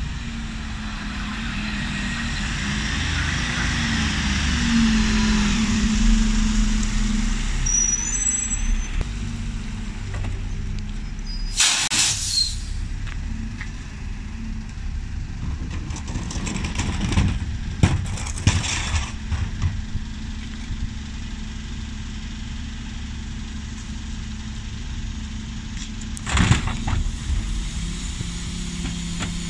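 Diesel engine of a Dennis Elite 6 refuse lorry running as the truck pulls up and then idles. A sharp air-brake hiss comes about 12 seconds in. Later there are a few shorter hisses and knocks while wheelie bins are hooked onto the rear lift.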